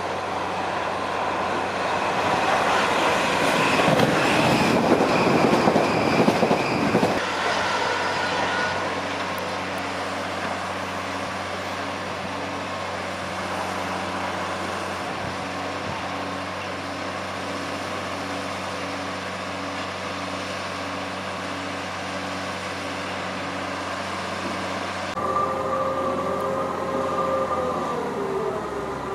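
South Western Railway Siemens Desiro electric multiple units, a Class 444 and then a Class 450, running on the lines. The first train passes with a loud rumble and clatter of wheels over the pointwork, heaviest from about four to seven seconds in, then settles into a steadier run with a regular pulsing. Near the end the second train's traction motors whine, their tones falling in pitch.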